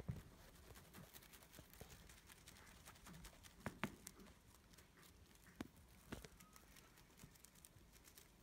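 Near silence with faint scattered taps and soft rustles. The loudest is a quick pair of taps about four seconds in.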